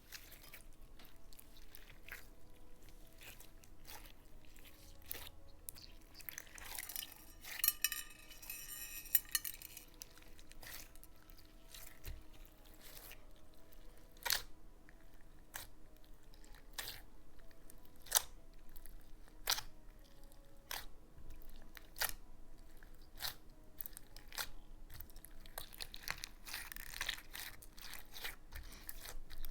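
Slime being squeezed and stretched by hand, giving sharp irregular clicks and pops as air pockets burst, with two longer crackly stretches, one a quarter of the way in and one near the end.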